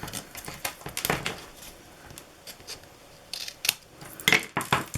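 Card and double-sided tape being handled on a craft table: a scatter of light taps, clicks and paper rustles, a few sharper ones about a second in and near the end.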